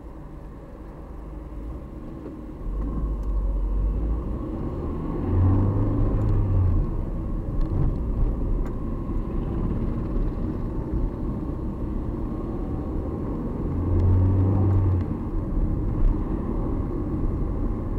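Car driving, heard from inside the cabin: a steady low engine and road rumble that grows louder about three seconds in, with a deeper hum swelling twice, around six and fourteen seconds in.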